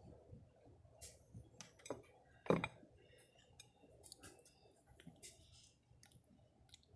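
Faint, irregular metallic clicks and clinks from handling a small teardrop jig and the metal tool holding it, with one louder knock about two and a half seconds in.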